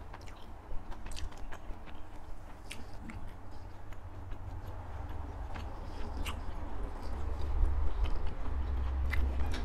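A person chewing food close to a clip-on microphone: wet mouth and chewing sounds with scattered short clicks, growing louder in the last few seconds.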